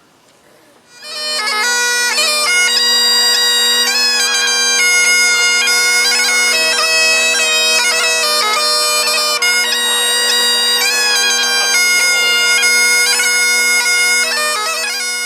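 Bagpipes starting up about a second in: steady drones held under a chanter melody.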